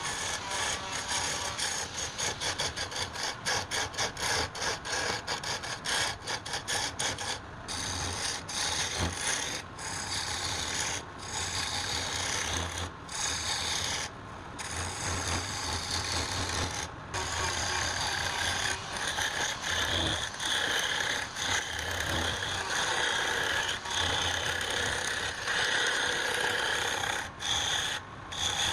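A rough tool scraping against wood in repeated strokes. The strokes are short and quick at first, then become longer, more continuous passes.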